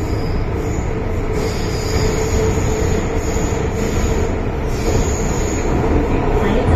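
Inside a Hong Kong MTR Island Line M-Train (Metro-Cammell electric multiple unit) running through the tunnel: a steady, loud rumble of the car and its wheels on the rails. A faint high wheel squeal comes in twice, about a second and a half in and again about five seconds in.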